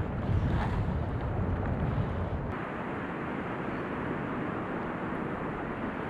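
Wind buffeting the microphone over small waves lapping on a sandy shore. About two and a half seconds in, the low rumble cuts off and a steadier wind hiss carries on.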